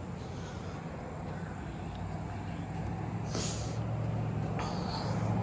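A vehicle engine running steadily, a low hum that grows slowly louder, with a short hiss a little past halfway and another near the end.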